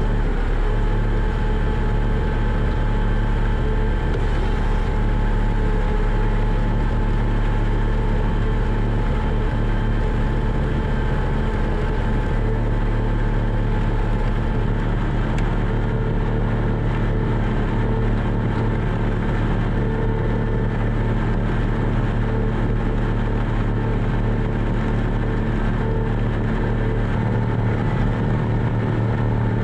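Tractor engine running steadily under load, a constant low drone while hauling a loaded manure spreader.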